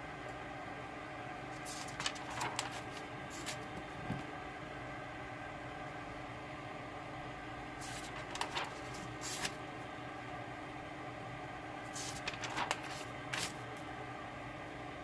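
Pages of a spiral notebook being turned by hand: three short bouts of paper rustling a few seconds apart, over a steady background hum.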